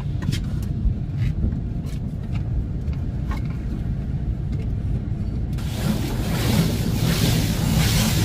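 Automatic car wash heard from inside a van's cabin: a steady low rumble with a few light knocks, then about five and a half seconds in a loud rushing hiss of the wash equipment against the van's body starts and keeps on.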